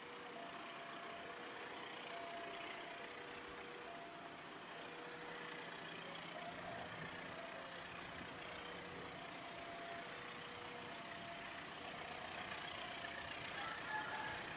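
Distant diesel locomotive hauling a passenger train as it approaches slowly, heard as a faint steady rumble and hiss. Under it a faint two-tone signal goes on throughout, a low tone and a higher tone taking turns about once a second, with a few brief high chirps now and then.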